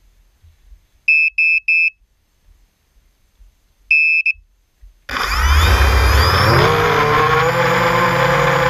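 A 250-size FPV racing quadcopter's electronics beep three times quickly and then once longer. About five seconds in, its brushless motors spin up with a rising whine and a rush of propeller wash, settling into a steady buzzing whine as it lifts off.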